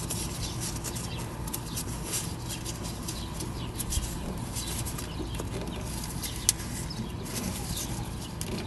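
Gloved hands working a stiff rubber coolant hose onto the fitting of an RV's heat transfer valve: irregular rustling, handling noise and small clicks, with one sharper click about six and a half seconds in, over a steady low hum.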